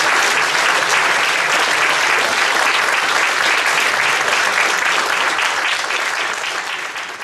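Audience applauding: dense, steady clapping from a seated crowd that begins to die away near the end.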